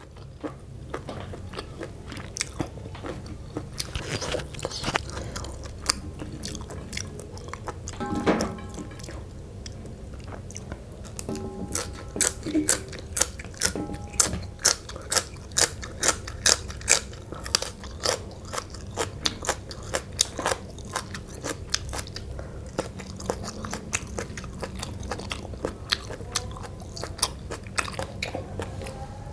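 Close-up chewing and crunching of a spicy Lao noodle salad eaten with raw long beans and greens. Crisp crunches come sparsely at first, then about twice a second through the second half.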